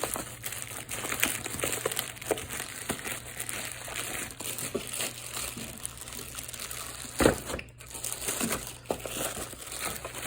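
Packaging crinkling and rustling as a package is opened by hand, with one louder knock about seven seconds in.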